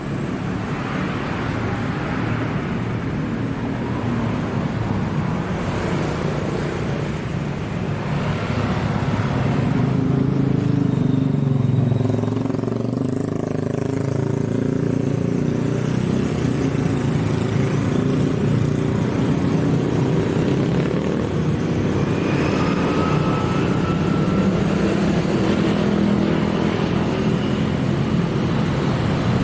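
Road traffic: motor vehicle engines running and passing steadily, with the rumble swelling a little about a third of the way in.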